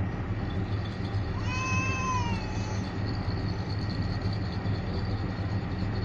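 A cat meows once, a single rising-then-falling call about a second and a half in, over a steady low rumble from the distant approaching train.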